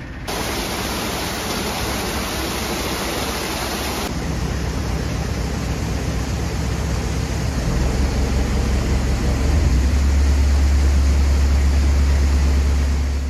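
Water rushing into a canal lock chamber around a narrowboat as the lock fills: a loud, steady rush, with a deep rumble that builds over the second half.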